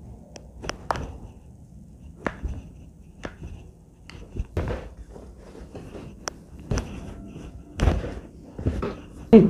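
Handling noises during a chiropractic treatment: scattered sharp clicks and a few dull thumps of hands and body moving, the loudest thump near the end.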